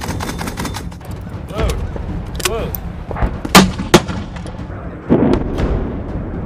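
Firing of 40 mm grenade launchers: a rapid run of automatic shots in the first second, then a few separate sharp shots, and a deeper, heavier blast about five seconds in.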